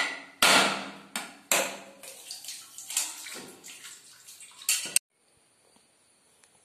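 A coconut struck several times with a heavy curved knife to crack it open over a steel pot: sharp knocks, each followed by coconut water splashing into the vessel. The sound cuts off abruptly about five seconds in.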